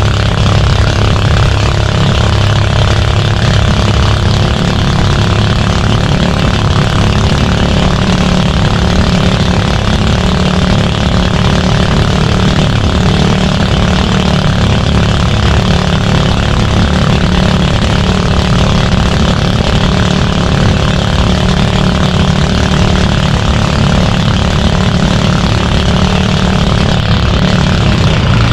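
Fishing boat's engine running steadily at a constant pace, loud and unbroken, with a steady hiss over it.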